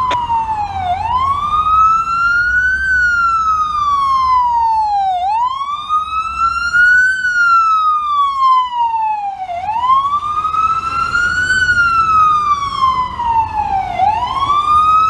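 FDNY EMS ambulance siren on wail, sweeping slowly up and down in pitch, about one rise and fall every four seconds, over a low rumble of traffic.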